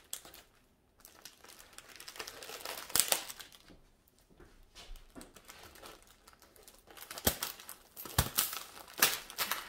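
Plastic wrap and air-cushion packaging crinkling as it is cut with scissors and pulled back, in scattered sharp snips and rustles that get busier in the last few seconds.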